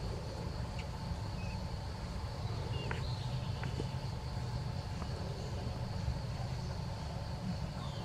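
Steady background ambience: a low rumble under a constant high-pitched insect drone, with a few faint clicks and short chirps.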